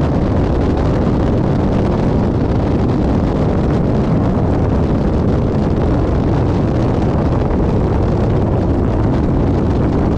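Cessna 172 Skyhawk's engine and propeller running steadily with rushing airflow, heard inside the cockpit on final approach.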